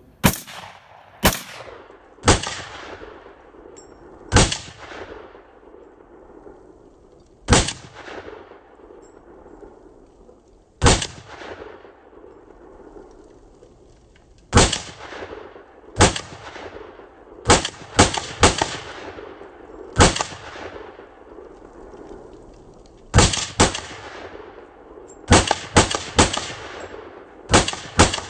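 Rifle fire from a 5.56 rifle: about twenty sharp shots, each trailed by a fading echo. They come slowly at first, a few seconds apart, then in quicker doubles and triples in the second half.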